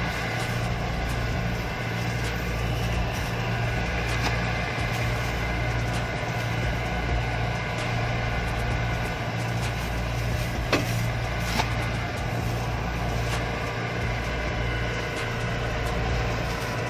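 Kubota DC-70 Plus combine harvester's diesel engine and machinery running steadily. Two short sharp knocks come about two-thirds of the way through.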